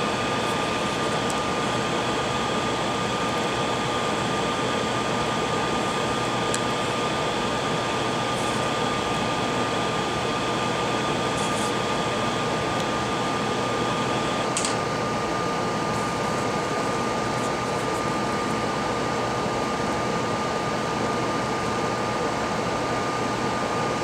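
Steady whir of a small electric fan with a thin, high, constant whine. About halfway through there is a faint click, and the upper part of the hiss drops a little.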